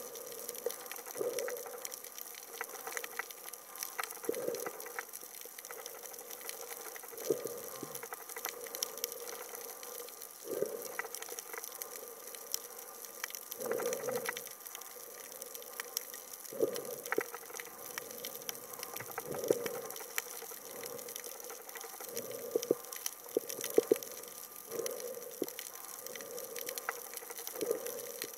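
Underwater water noise picked up by a submerged camera: a constant fine crackle, with a muffled whoosh about every three seconds.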